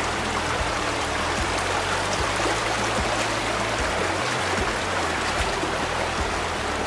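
Shallow creek running fast over rocks in a narrow slot canyon: a steady rush and splash of water.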